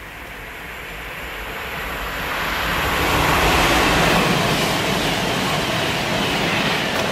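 Class 390 Pendolino electric train passing through at speed: a rushing noise of wheels on rail and air that swells over the first three seconds as the train draws level, then stays loud as the carriages stream past.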